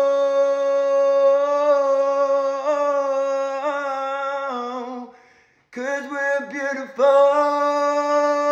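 A man singing unaccompanied, holding a long steady note. About five seconds in he breaks off for a moment, sings a few wavering notes, then holds the note again.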